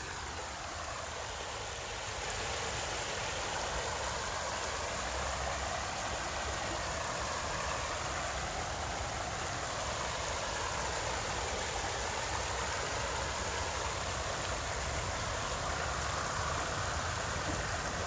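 Small waterfall pouring down a concrete channel into a pond: a steady rush of falling, splashing water.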